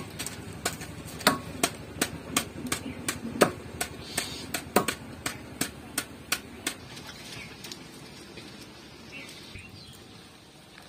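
Knife chopping raw chicken on a wooden block: a run of sharp knocks, about three a second, that stops about seven seconds in.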